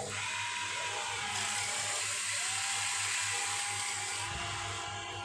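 Small electric gear motors of a radio-controlled toy excavator whining steadily as the upper body swings and the arm and bucket lift. The whine shifts in tone about a second in and again near the end, with a low thump just before the end.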